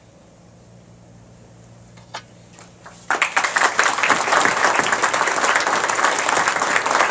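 Quiet room tone with a low hum and a few faint clicks, then an audience breaks into applause suddenly about three seconds in, loud, dense hand clapping.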